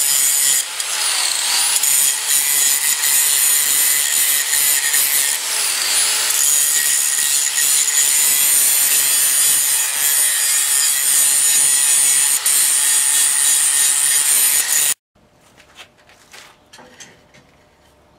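Angle grinder grinding a forged steel punch: a steady high whine over a harsh grinding noise, the pitch dipping twice as the disc bites under load. It stops abruptly about fifteen seconds in.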